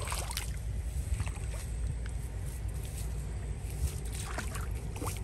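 A steady low rumble with faint scattered ticks and rustles over it.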